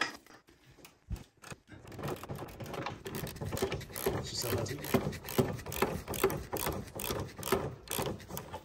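Hand ratchet with a 16 mm socket clicking rapidly as a nut that has just broken loose is run off. There is a single knock about a second in, and the steady ratcheting starts about two seconds in.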